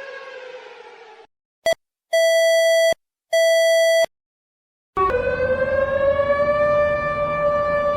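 Emergency alert tones played in reverse: a siren tone fades and cuts off abruptly, then a short electronic blip and two longer steady beeps follow. About five seconds in, a siren tone starts, rises slightly in pitch and then holds steady.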